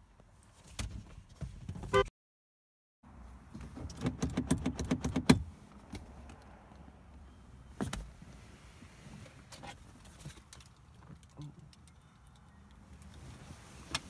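Knocks, clicks and rustling of people moving about inside a car cabin and climbing between the seats, with a quick run of knocks that ends in a sharp one about five seconds in. About two seconds in, the sound drops out completely for a second.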